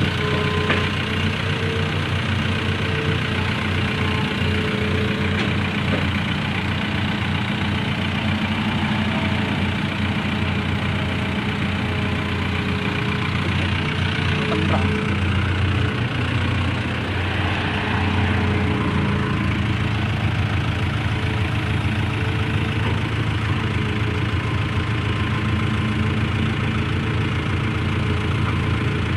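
An engine running steadily at a low, even speed.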